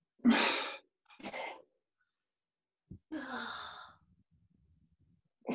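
A man's heavy, strained exhales, three of them, the first and last with a low groan, from the discomfort of a mobility ball pressing into his back as he works his shoulder overhead.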